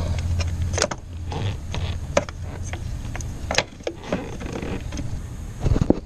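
Hand work in a car's engine bay: a handful of sharp clicks and clunks from plastic parts and tools being moved, a second or more apart, with a quick cluster near the end, over a low steady hum.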